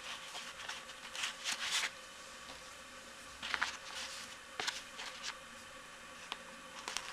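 Short scratchy rustles of hands pushing needles through a shoe sole to pin it to a wool slipper, a few seconds apart, over a faint steady hum.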